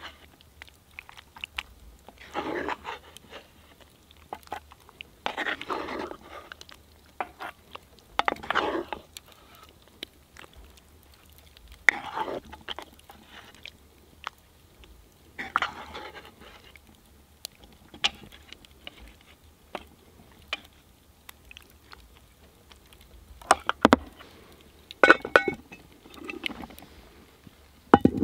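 Wooden spoon scooping saucy tortellini out of a cast-iron pot into a metal bowl: a wet scraping plop about every three seconds, with light clinks of spoon against pot and bowl and a few louder knocks near the end.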